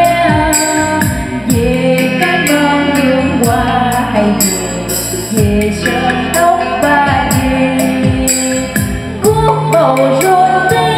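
A woman singing a Vietnamese song into a microphone over a karaoke backing track with a deep bass drum beat, played loud through the Nhật Tây NT 1508 trolley karaoke speaker with two 40 cm bass drivers.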